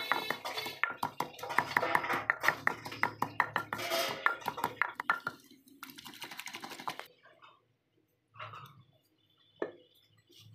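Wooden pestle pounding and grinding shredded vegetables in a clay pot: a fast run of knocks for about five seconds, then a rougher grinding for two more, then quiet with a single sharp knock near the end.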